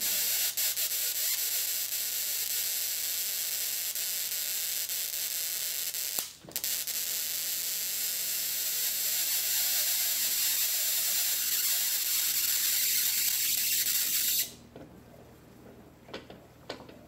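High-voltage spark arcing across an adjustable spark gap between quarter-inch aluminum rods: a steady, high-pitched buzzing hiss. It breaks off briefly about six seconds in and falls to much quieter near the end, when the rods are closed to a very short arc.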